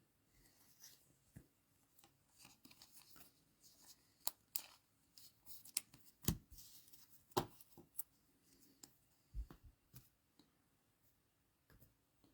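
Faint handling of trading cards and their packaging: scattered light clicks, taps and short rustles at irregular moments.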